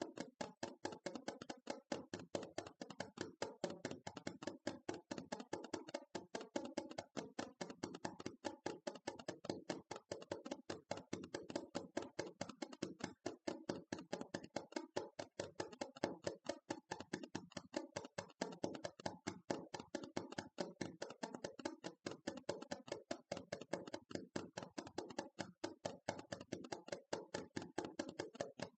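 Rapid ASMR tapping, fingers tapping on a hard object many times a second in an unbroken stream.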